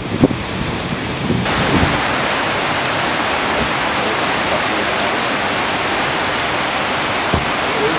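Loud steady rush of whitewater: a river running fast and high over rapids from a dam release. The sound changes abruptly about a second and a half in, from the dam outlet's discharge to the rapids.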